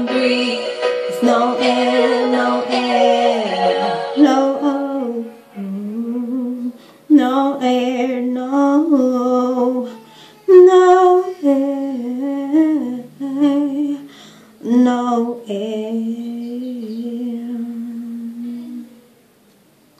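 A woman's solo singing voice in long phrases with wavering runs, at times humming with closed lips. The singing stops about a second before the end.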